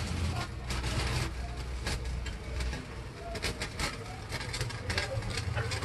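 Many small clicks and scrapes of a metal spoon against a plastic spice jar as powder is scooped out, over a low steady rumble from a lit gas stove burner.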